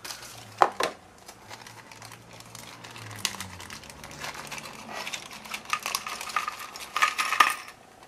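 Thin plastic zip-lock bag crinkling as it is opened and handled, with small electronic components clicking as they are tipped out onto a plastic tray. The crinkling is heaviest in the last few seconds.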